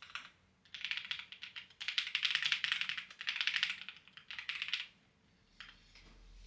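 Clacky computer keyboard being typed on in several quick bursts with short pauses between them, trailing off into a couple of single keystrokes near the end.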